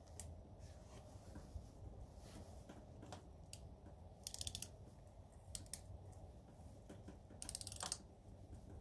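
Faint ratchet clicking in two short runs, about four seconds in and again near the end, with a few single clicks between: a ratchet being worked to cut threads into an engine's mounting bolt holes.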